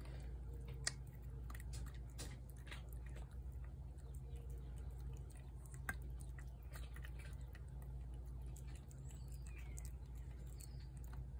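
Feral tabby cat eating wet cat food from a plate, with irregular small clicks and smacks of chewing over a steady low hum.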